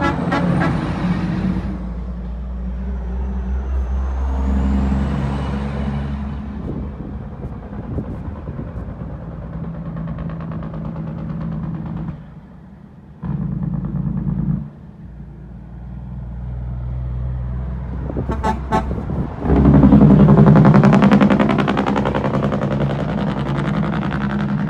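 Heavy diesel dump trucks passing close one after the other: a loaded International cabover goes by first with a rising whistle over its engine, then a red Peterbilt conventional runs past loudest near the end. There is a short horn toot just before the second truck passes.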